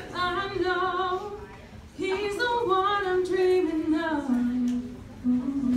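Women's voices singing together live into microphones, in long held notes. The singing breaks off briefly about two seconds in, then steps down to a lower note that is held near the end.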